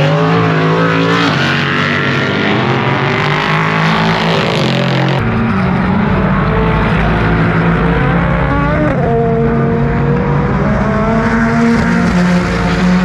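Several race cars running on the circuit, their engine notes rising and falling and overlapping as cars go by.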